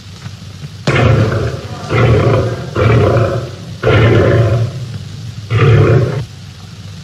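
A caged big cat roaring, five loud roars in about five seconds, each lasting under a second.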